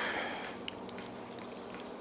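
Faint handling noise of a disc detainer lock pick at the padlock: a short scrape at the start and a single small click, over a faint steady hum.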